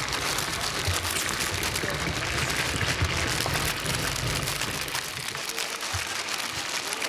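Dense crackling sizzle like a pork cutlet deep-frying in hot oil, heard as a frying sound effect. It thins somewhat after about five seconds.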